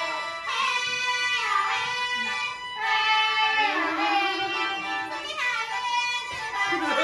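A group of young women singing a toasting song together, high-pitched, in long drawn-out phrases with short breaths between them, while they pour drink for a guest.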